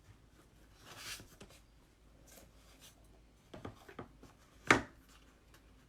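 Soft handling noises and a couple of light clicks, then one sharp snap of a staple gun firing the first staple into the canvas.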